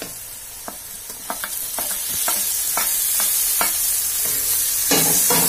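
Wooden spatula knocking and scraping against a metal kadhai as chopped tomatoes are stirred into frying onions and spices, a dozen or so sharp clicks. Hot oil sizzles under it, growing louder about two seconds in as the tomatoes start to fry.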